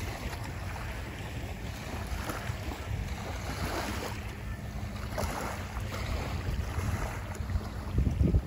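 Wind buffeting the microphone in an uneven rumble, with small waves lapping on the water. A stronger gust just before the end is the loudest part.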